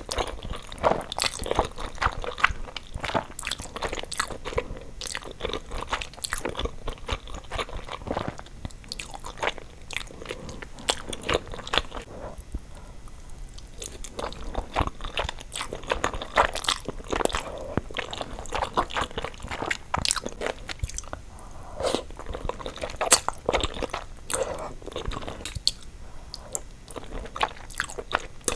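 Close-miked mukbang eating: a person biting and chewing food with many small wet, crunchy clicks, easing off for a moment about halfway through.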